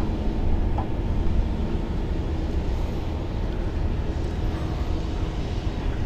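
Steady low mechanical rumble with a faint steady hum over it.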